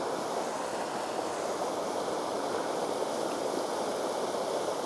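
Fast river water rushing over shallow rapids: a steady, unbroken rush.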